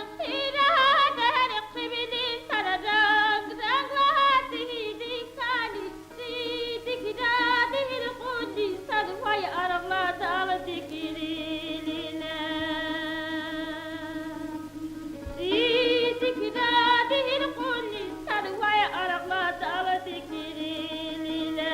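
Solo voice singing an ornamented folk melody, holding long wavering notes with wide vibrato over a steady drone.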